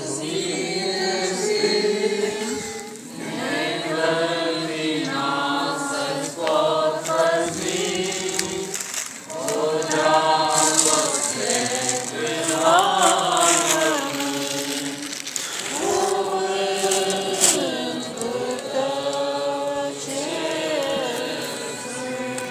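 Many voices singing a slow religious hymn together in long phrases, pausing briefly about every six seconds.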